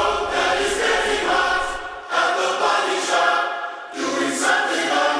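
Background music with choir-like singing, several voices holding sustained chords.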